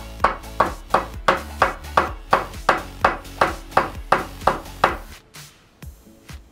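Hammer driving nails into a wooden wall stud: a steady run of about fifteen even blows, roughly three a second, stopping about five seconds in.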